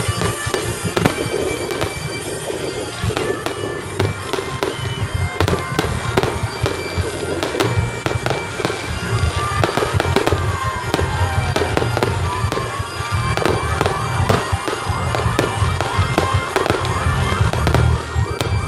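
Aerial fireworks display: shells bursting in a continuous, rapid series of bangs and crackles.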